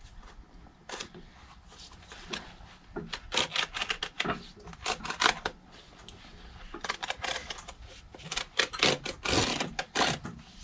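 Cobbler's knife cutting through the outsole stitching of a rubber half sole at the welt: runs of short clicks and scrapes, one about three seconds in and another from about seven seconds. The stitches cut right through just like butter, a sign that the factory stitching was weak, sewn without proper tension.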